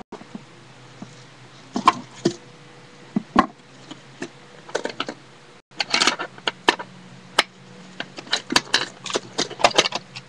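Small sewing supplies being handled and put away in a sewing kit: irregular clicks and light rattles, a few at first, then a busy clatter in the second half.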